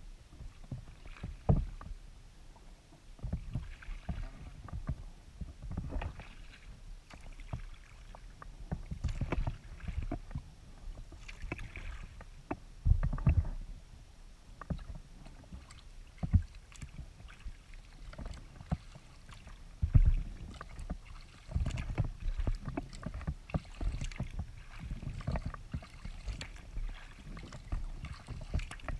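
Folding kayak being paddled: irregular water splashes and drips from the paddle, with dull knocks on the hull, a few of them louder than the rest.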